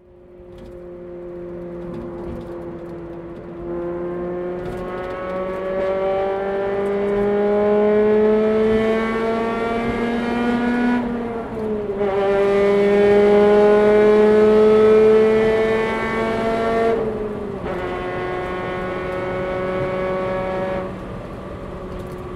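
Honda Civic Type R FD2's 2.0-litre VTEC four-cylinder engine and exhaust pulling under steady acceleration, its note climbing slowly. It dips briefly about halfway, climbs again to its loudest, then drops back to a lower, quieter steady note near the end.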